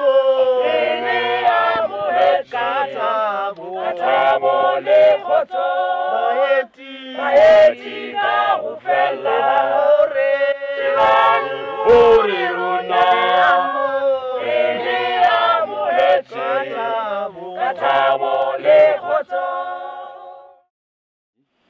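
Mixed choir of men and women singing a cappella in harmony, in an African language. The song cuts off abruptly near the end.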